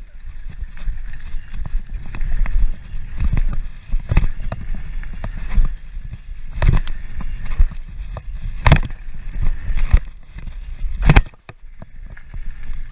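Mountain bike ridden fast over a dirt jump track: wind rushing over the camera microphone and tyres rumbling on dirt, with several sharp knocks from the bike as it hits and lands the jumps, the hardest near the end.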